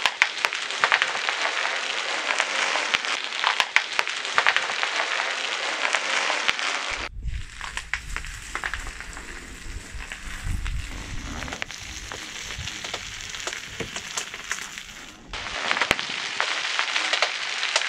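Bubble wrap bursting under a rolling car tyre: a dense crackle of many small pops. In the middle stretch the pops are sparser, over a low rumble.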